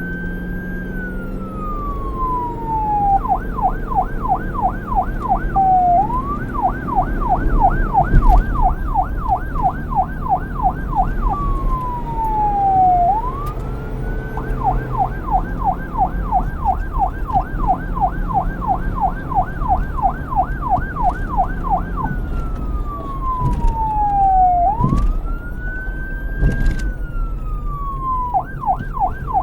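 Police car siren alternating between a slow wail and a fast yelp: each long glide falls from high to low, then switches to rapid rising-and-falling sweeps of about four a second, and the pattern repeats several times. A low rumble runs underneath.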